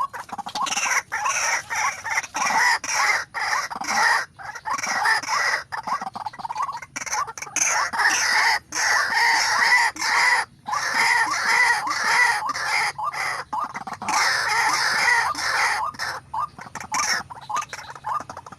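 White-breasted waterhens calling loudly, a dense run of rapid, harsh repeated notes in long bouts with a few brief breaks.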